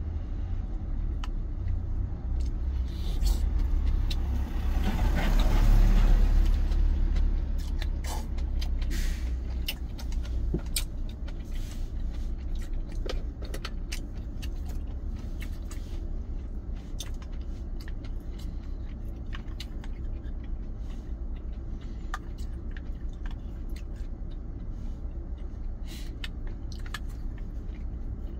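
Spoon and chopsticks clicking against a stainless steel food container while eating, over a steady low rumble. A vehicle passes, rising and fading from about four to seven seconds in.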